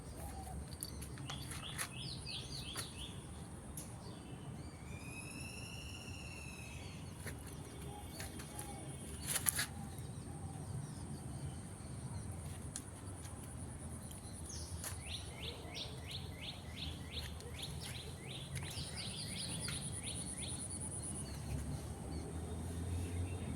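Small birds chirping in rapid runs of short high notes, with a long run about two-thirds of the way through and another at the very end, over a steady low outdoor rumble. A single sharp click comes about nine seconds in.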